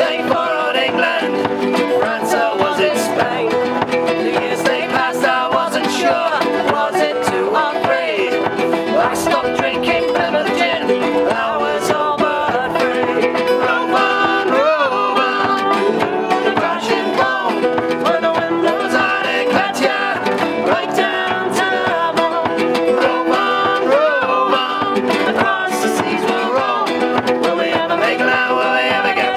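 Background folk music with plucked strings.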